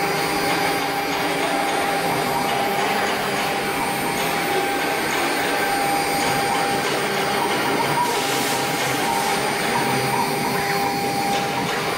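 CNC router spindle running steadily with a whine while its bit engraves a fibreboard sheet, over a hiss of cutting.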